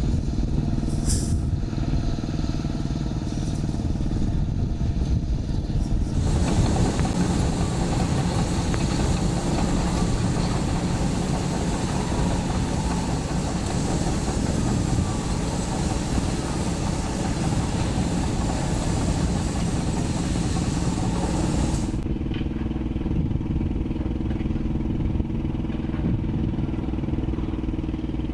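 Diesel engines of heavy earthmoving machines running steadily under load. From about six seconds in to about twenty-two seconds a louder, harsher rushing and rattling noise lies over the engine drone, then cuts off abruptly.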